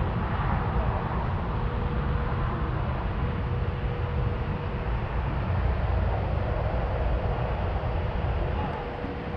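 Steady low rumble of a vehicle on the move, with a faint constant hum running through it.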